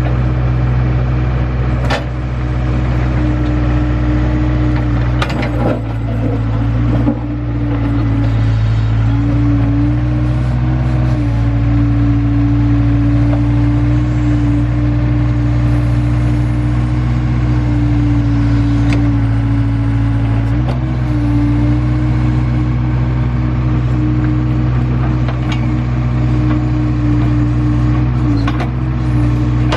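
Engine of earthmoving equipment running steadily under a working load, its pitch shifting slightly a few times. A few sharp knocks or clanks come in the first several seconds.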